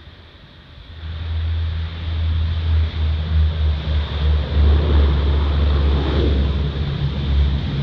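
NOAA WP-3D Orion (Lockheed P-3) four-engine turboprop on its landing rollout: a deep propeller drone with a higher turbine whine, growing louder about a second in as the aircraft rolls closer.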